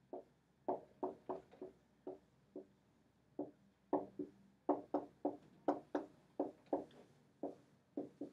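Dry-erase marker writing on a whiteboard: an irregular run of short taps and strokes, about three a second, as each letter is drawn.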